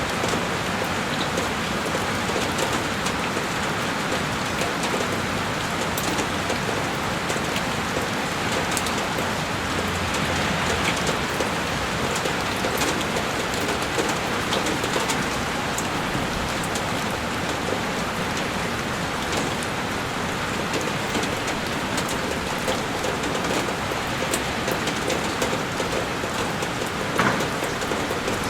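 Heavy rain falling steadily on a window, a dense even hiss with scattered sharp drop impacts and one louder tap near the end.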